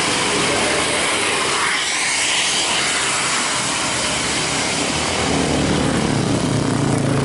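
Heavy traffic noise of a coach bus passing close on a climb, a dense rushing engine-and-road sound. About five seconds in, a steady low engine drone comes up and grows louder.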